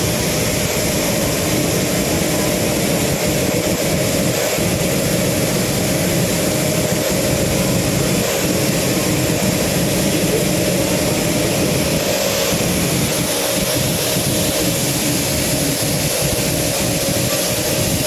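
Steady, loud jet-turbine noise: an even rush with a constant tone through it, holding the same level throughout, the sound of aircraft turbine machinery running on the ground.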